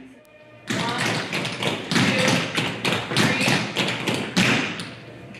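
Many pairs of tap shoes striking a studio floor as a class dances, a fast, irregular clatter of taps that starts suddenly about two-thirds of a second in.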